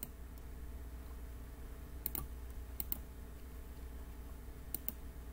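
Computer mouse clicking: a single sharp click at the start, then three quick double clicks, two close together about two to three seconds in and one near the end, over a steady low electrical hum.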